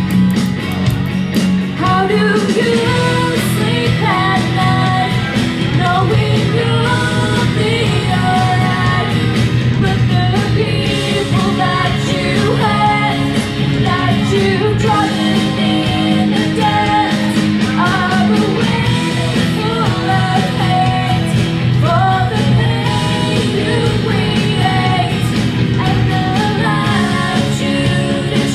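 A female vocalist singing live into a microphone over a rock-pop backing track, both played through PA speakers; her voice comes in about two seconds in after a short instrumental bar.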